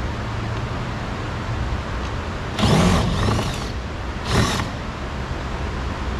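Two short bursts of tool-on-metal noise, the first about a second long and the second briefly about a second later, from a 7 mm socket backing out a screw in a car door's handle area. A steady low background hum runs underneath.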